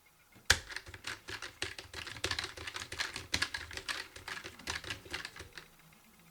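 Fast typing on a Keychron K1 low-profile mechanical keyboard with red linear switches: a dense clatter of keystrokes that starts with a sharp first click about half a second in and stops shortly before the end.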